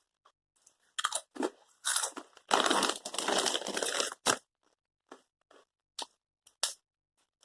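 Crunching and chewing a Takis rolled tortilla chip close to the microphone: a few crunches, a dense stretch of loud crunching from about two and a half to four seconds in, then sparser crunches.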